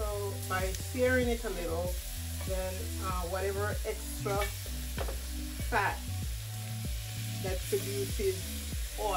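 Food sizzling on the stove while it is stirred and turned with a wooden spatula, with soft scrapes and knocks against the pans. Background music with a bass line plays throughout.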